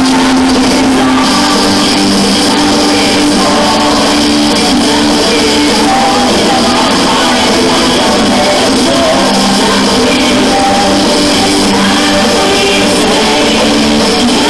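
Loud pop-rock song with singing, played as the backing track for a colorguard routine.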